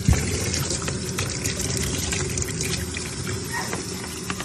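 Water tap running in a steady stream, splashing onto a wet cat's fur in a basin.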